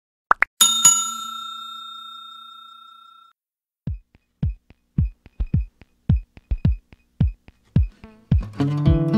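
Subscribe-button animation sound effects: two quick clicks, then a bell ding that rings out and fades over about two and a half seconds. Background music then begins with a run of deep drum-machine kicks in an uneven beat, and strummed guitar chords come in near the end.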